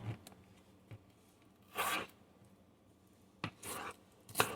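A kitchen knife slicing through a raw onion on a cutting board: a few separate short, crisp cutting strokes with small taps in between.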